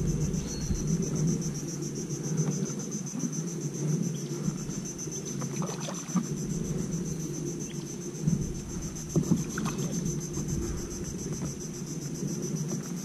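Steady chorus of insects, a high continuous pulsing buzz, over a low rumble, with a few light knocks about six and ten seconds in.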